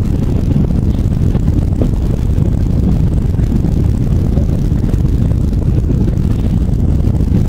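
Fishing boat's engine running with a steady low rumble as the boat eases slowly forward.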